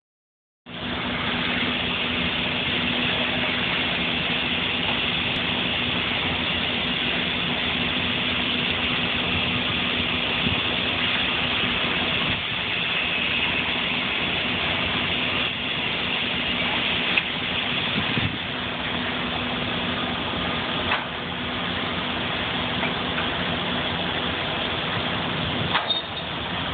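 Sawmill machinery running: a steady, even din with a constant low hum and a few scattered knocks.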